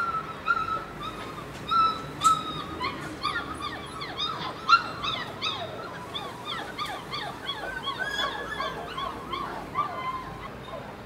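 Several dogs whining, with a constant stream of short, overlapping high-pitched cries and a few sharper yelps.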